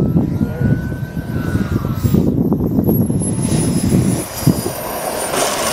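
Radio-controlled model turbine jet coming in to land, its high turbine whine falling steadily in pitch as it throttles back. A heavy low rumble runs underneath.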